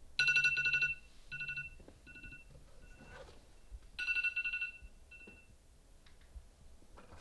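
A mobile phone ringing with an electronic ringtone of two steady high tones: a loud ring near the start and another about four seconds later, each followed by shorter, fainter repeats. A low buzz sounds under the first ring.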